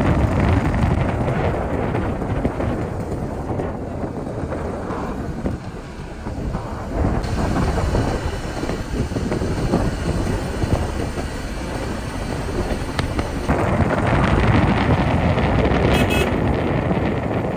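Wind buffeting the microphone over the rumble of a moving vehicle on the road, rising and falling in level.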